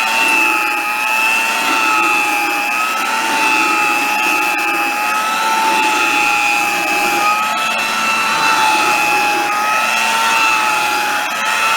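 Vintage Hamilton Beach hand vacuum cleaner running with a steady high whine, its pitch wavering slightly up and down as it works the stairs, with a few faint knocks.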